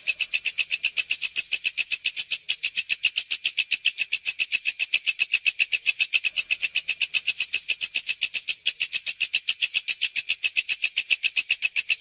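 Walang kecek, a bush cricket (katydid), stridulating: a steady, high-pitched train of rapid rasping pulses, about seven to eight a second.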